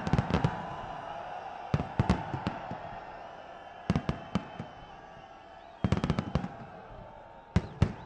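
Aerial fireworks exploding overhead in quick clusters of sharp bangs, a burst every second or two, over a steady background din.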